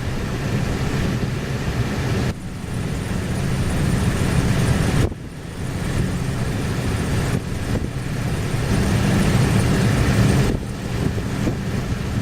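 Strong gale-force wind buffeting the microphone in a loud, steady low rumble, with heavy lake surf beneath it. The sound breaks off abruptly and resumes three times.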